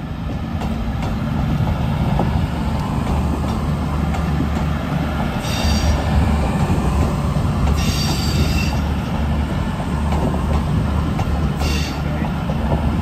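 CrossCountry Class 221 Super Voyager diesel multiple unit moving in the platform, its underfloor diesel engines giving a steady low drone. Three short high-pitched wheel squeals come from the flanges on the track, the first a little after the middle and the last near the end.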